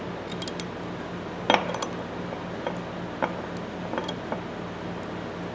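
Light metallic clicks and scrapes of a thin steel pick worked against the stuck screw in a steel tap handle, a few separate taps with the loudest about one and a half seconds in. A steady low hum runs underneath.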